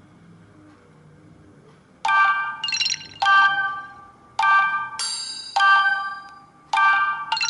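A Nokia Asha 302 ringtone starting about two seconds in: a phrase of bell-like chime notes that repeats, each note struck sharply and ringing out, in short groups with brief pauses between them. Before it there is only a faint low hum.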